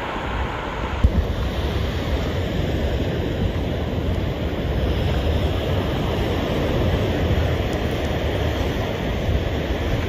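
Ocean surf washing up the beach, with wind buffeting the microphone in a steady low rush. A brief knock about a second in.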